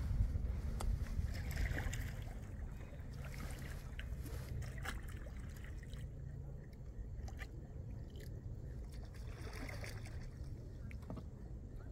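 Water dripping and trickling around a kayak, with scattered small clicks and a few soft splashes from paddle and hull. Wind rumbles on the microphone at the start and fades within the first couple of seconds.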